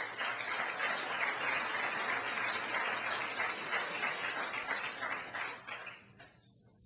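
Audience applauding, a dense patter of many hands clapping that fades out about six seconds in.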